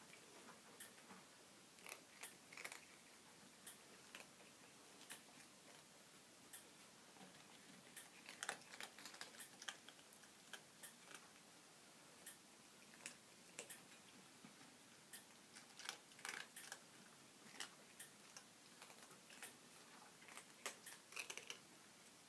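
Cats chewing food, a run of irregular, crisp crunches and clicks at uneven intervals.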